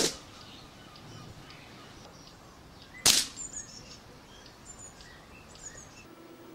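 Two shots from an Air Arms S400 pre-charged pneumatic air rifle, about three seconds apart, each a short sharp report. Small birds chirp faintly in the background.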